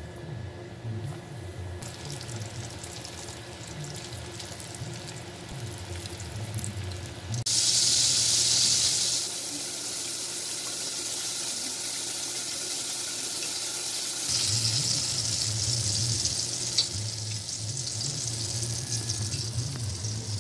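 Liquid heating in a stainless steel pot on a gas stove: water starting to bubble, then, after a cut, a brown liquid boiling with a steady hiss. About seven seconds in there is a sudden, louder hiss lasting a couple of seconds, and a low hum sits underneath at times.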